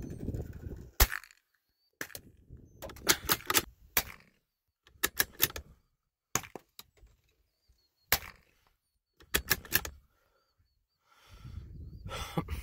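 Handling noise on a rifle-mounted scope camera: sharp clicks and knocks in short clusters with quiet gaps between, and a low rumble in the first second and again near the end.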